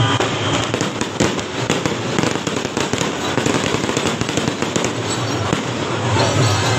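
Firecrackers going off in quick succession, a dense run of crackling pops that thins out after about five seconds, over the noise of a street crowd.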